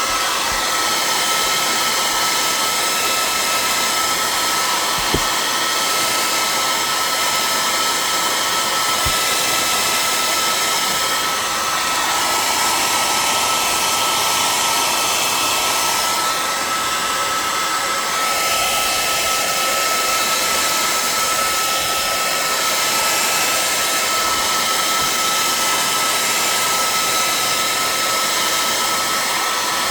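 Handheld hairdryer running continuously, a steady blowing hiss with a high motor whine, aimed at a plastic planner cover to heat and stretch it. The tone shifts slightly now and then as the dryer is moved.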